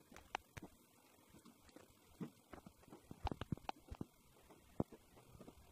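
Faint, irregular clicks and taps, with a quick cluster of them about three to four seconds in and one more sharp click near the end.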